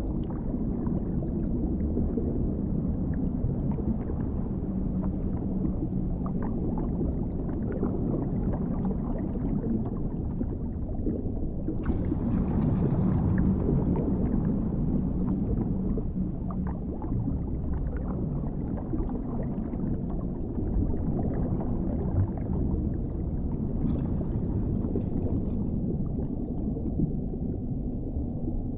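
Underwater ambience: a steady, muffled low rumble with faint scattered clicks, growing a little brighter for a couple of seconds around the middle.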